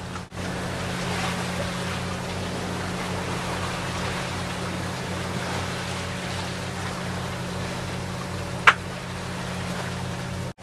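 Steady low hum of the sailboat's motor running, under wind and water rushing past the hull. A single sharp click sounds near the end.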